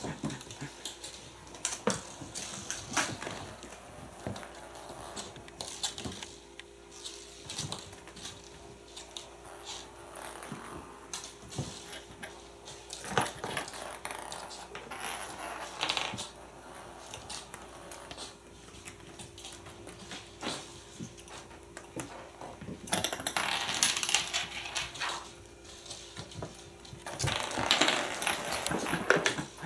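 Kittens playing with small plastic balls on a wooden floor: scattered clicks, taps and rattles of balls and paws on the boards, with louder bursts of scuffling about three-quarters of the way through and again near the end.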